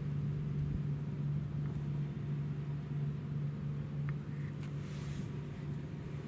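Steady low hum of a running engine, with a few faint clicks about four to five seconds in.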